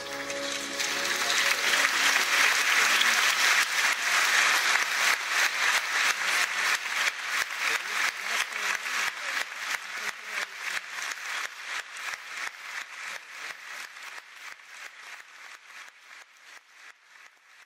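Opera house audience applauding as the orchestra's final chord cuts off. The applause swells over the first couple of seconds, settles into rhythmic clapping in unison, and fades away steadily.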